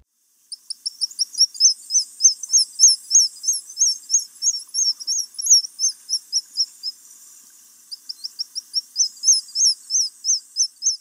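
A bird gives a quick, steady run of short, high-pitched chirps, about four or five a second. The chirps stop for about a second part way through, then start again.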